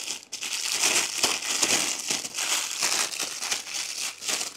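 Thin plastic packaging crinkling and rustling as it is handled and unwrapped, a dense run of irregular crackles.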